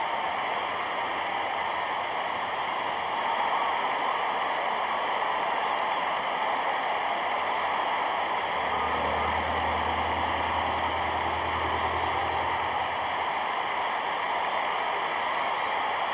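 Steady hiss and noise of an old archival soundtrack, with a low hum coming in about eight seconds in and fading out around thirteen seconds.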